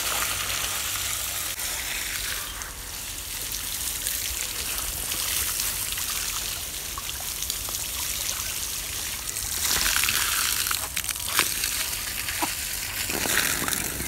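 Water from a running garden hose splashing onto soil, dry leaves and a leafy bush, a steady splashing hiss that grows louder around ten seconds in and again near the end.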